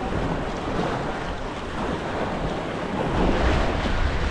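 Surf washing against a rock jetty, with wind rumbling on the microphone; the rush grows louder about three seconds in.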